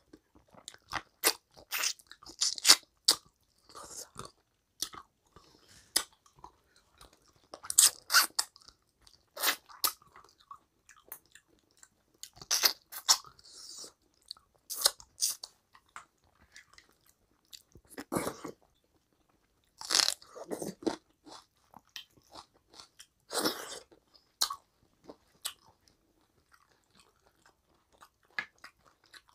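A person chewing mouthfuls of rice and mutton curry eaten by hand: wet mouth smacks and clicks in irregular clusters, with short pauses between, a few louder than the rest.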